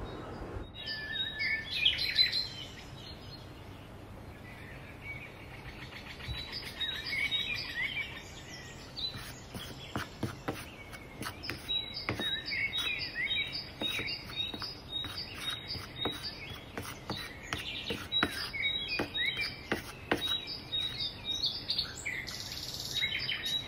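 Songbirds chirping and whistling, a stock bird-chirp soundtrack, with short repeated high notes through the second half. A scatter of light clicks comes in from about ten seconds.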